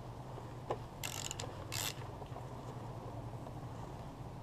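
Socket ratchet clicking in a few short bursts as the oil drain plug is tightened back into the outboard's lower unit.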